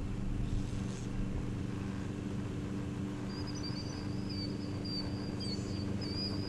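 A bird singing a long, high, warbling trill that starts about halfway in, over a steady low hum.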